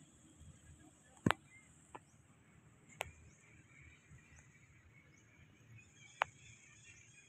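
Quiet outdoor ambience: a steady high-pitched insect hiss, broken by four sharp clicks, the first, about a second in, the loudest.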